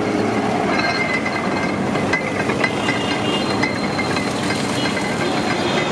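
Cast-iron sugarcane juice crusher running with a steady mechanical rattle of gears and rollers while sugarcane is fed through and crushed.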